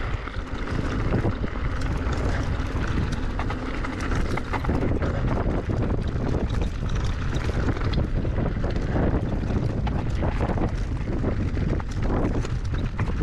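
Wind noise on the microphone over the rattle and crunch of an electric mountain bike riding a loose stony path, with many small knocks and clatters throughout.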